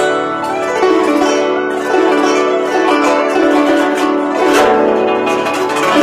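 Guzheng being played, a quick flow of plucked notes ringing over one another.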